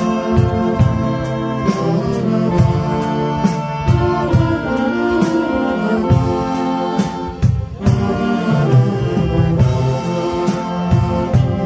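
Saxophone ensemble playing together, several saxophones holding chords in harmony, with drums keeping a steady beat.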